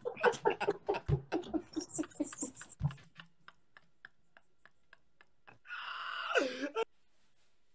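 A man laughing hard in quick repeated bursts that fade into faint breathy clicks after about three seconds. Near the end there is a brief, louder high-pitched squeal that falls in pitch.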